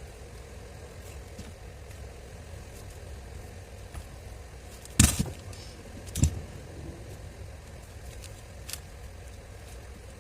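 Two sharp knocks about a second apart, with a few faint clicks, as parts or tools are handled on the workbench during the grinder repair, over a low steady hum.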